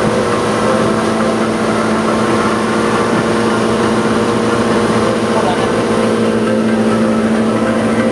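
Boat engine running steadily at a constant speed, its even hum holding one pitch throughout.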